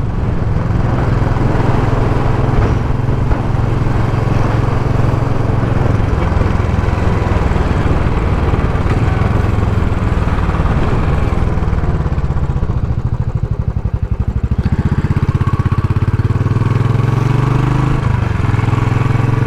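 Royal Enfield Classic 500's single-cylinder engine running on the road, with a steady fast thump. It eases off about two-thirds of the way through, then picks up again. The bike is pulling much better on a freshly fitted iridium spark plug.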